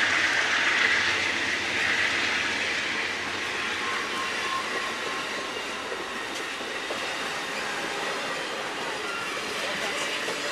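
Amtrak Superliner bilevel passenger cars rolling past at low speed as the train pulls out, a steady rumble of wheels on rail. The rumble eases a little after the first few seconds, and a few faint clicks come near the end.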